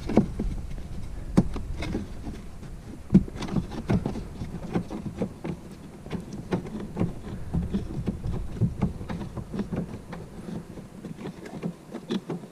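Plastic tail-light retaining screw being turned out by hand: many small irregular plastic clicks and scrapes, about two or three a second, over a low rumble that fades after the first few seconds.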